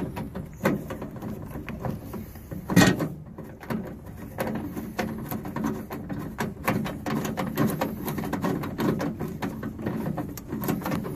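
Socket ratchet on a long extension clicking irregularly as it turns out a battery-tray mounting bolt, with a louder knock about three seconds in.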